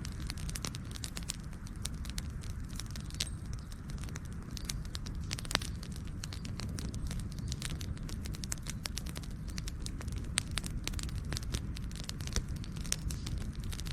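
Campfire burning, with a steady low rumble of flames under frequent sharp crackles and pops, a louder pop about five and a half seconds in.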